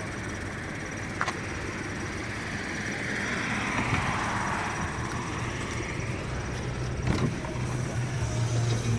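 Scion FR-S's FA20 flat-four engine running, with the chirping 'cricket noise' this engine is known to develop.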